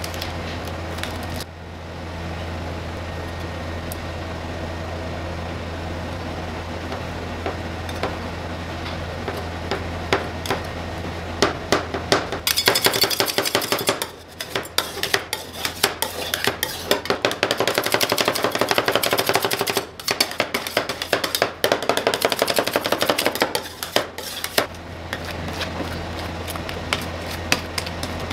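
Metal spatulas on a steel rolled-ice-cream cold plate: a rapid, dense clatter of metal on metal as cake is chopped into the cream, starting a little before halfway, then lighter scraping as the mix is spread thin. At the start a plastic wrapper crinkles, and a steady low hum runs under the quieter parts.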